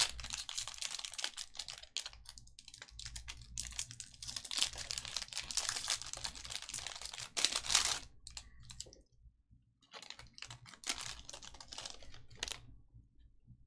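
Bowman baseball cards and packs being handled: dense rustling and flicking for about eight seconds, then sparser clicks with short gaps, dying away shortly before the end.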